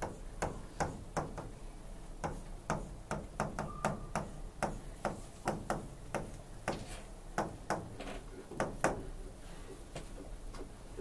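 Stylus pen tapping and clicking on the glass of an interactive display panel while formulas are written on it: a string of short, sharp taps, two or three a second, that stops about two seconds before the end.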